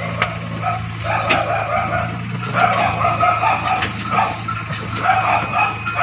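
A dog yapping and whining in several short bouts, over the steady hum of the Chery QQ's engine idling.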